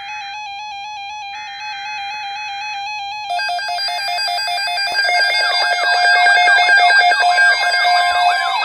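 Synthesized electronic alert tones: a steady warbling tone, joined by further tones about three seconds in and by repeated falling siren-like sweeps from about five seconds in, growing louder.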